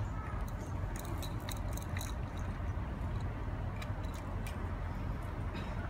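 Steady low outdoor rumble, with a few faint light clicks in the first half.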